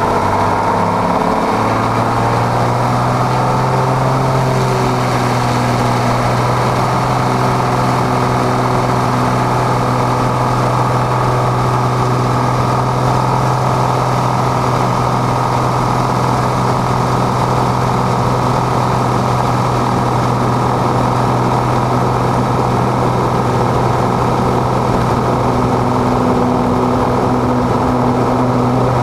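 Piper PA-32 Cherokee Six's six-cylinder piston engine and propeller heard from inside the cabin, running steadily at low taxi power. The engine note rises a little about a second and a half in, then holds even.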